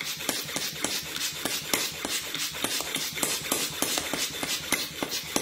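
Small hand piston pump sucking air out of a vacuum storage bag through its valve, worked in quick strokes: a fast, even run of short clicks and puffs, several a second.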